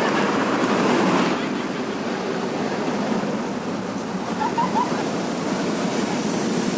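Steady engine rumble under a noisy hum, with faint voices; no horn is sounding.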